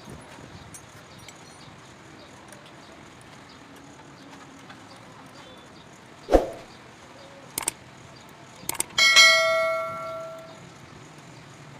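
A thud, then a few clicks, then a metal object struck once, ringing with a bell-like tone that fades out over about a second and a half.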